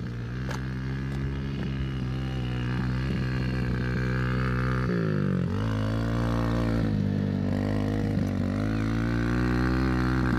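Small dirt bike engine running under throttle as the bike rides closer, growing gradually louder. About halfway through, the pitch drops sharply and then climbs again, with a couple of smaller dips after.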